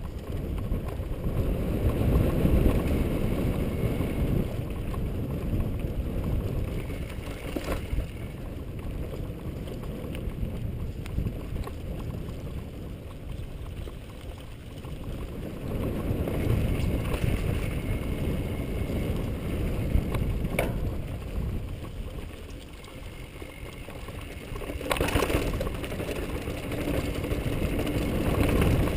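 Mountain bike rolling and rattling down a rough dirt singletrack, with wind rumbling on the helmet or handlebar camera's microphone. The noise swells and eases as speed changes, and a few sharp knocks come from the bike hitting rocks.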